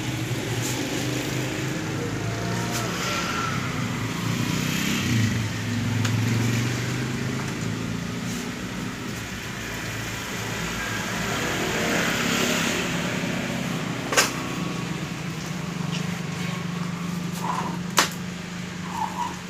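Steady low drone of a motor vehicle engine running, with rustling and two sharp clicks, one about two-thirds of the way through and one near the end.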